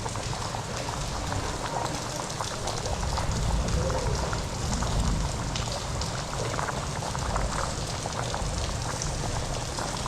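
Pot of stew peas boiling, with a steady bubbling hiss and many small crackles and pops.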